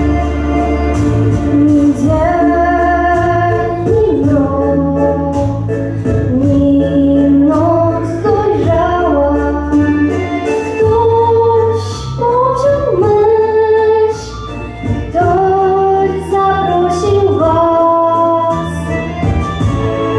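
A young girl singing a song through a microphone over an instrumental accompaniment with a steady bass line.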